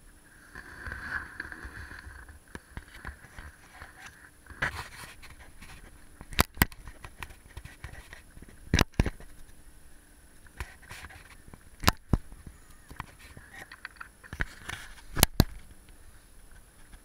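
Chairlift running past a lift tower: sharp double clacks from the chair and haul cable come every two to three seconds over a faint steady whir.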